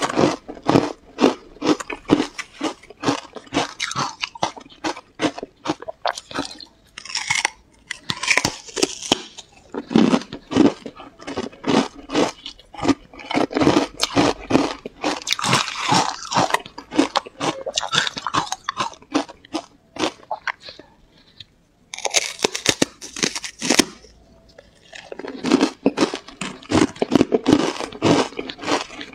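Ice coated in matcha powder bitten and chewed close to a clip-on microphone: dense, rapid crunching and crackling, with a short pause a little past two-thirds of the way through.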